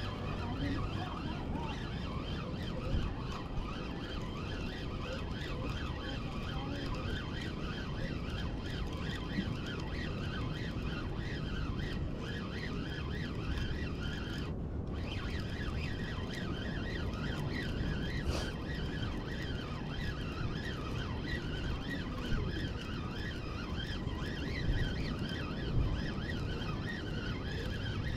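Daiwa BG 4000 spinning reel being cranked steadily as line is retrieved: a continuous, even whir from the reel's gears and rotor.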